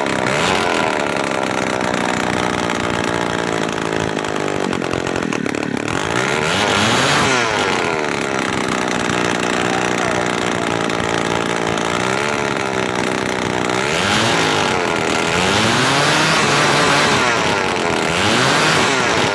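Two-stroke brush cutter engine running after its carbon-clogged muffler and exhaust were cleaned, revved up and down several times between steadier running.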